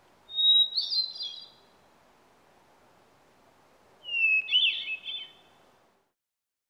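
Bird song: two short, high, warbling phrases about four seconds apart, the second opening with a rising glide, over a faint steady hiss.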